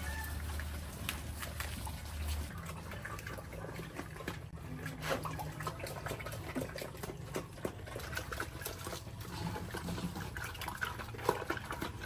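Sows eating freshly tipped green leaves from a wet trough: irregular wet chewing and slurping clicks.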